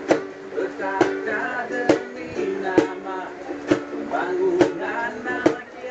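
Acoustic guitar and ukulele strummed together with voices singing, a sharp percussive hit marking the beat about once a second.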